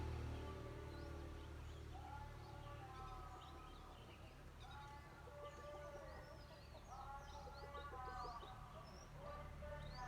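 Birds chirping and calling in many short, rising and falling notes over a steady low engine rumble.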